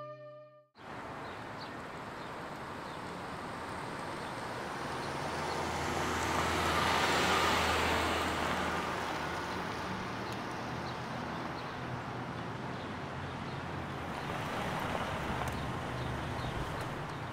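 Road traffic noise: a car passes, growing louder to about halfway and then fading, over a steady low rumble.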